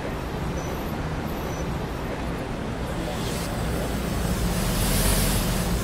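Rome Metro line B train running, a steady rumble inside the carriage, swelling with more hiss about five seconds in.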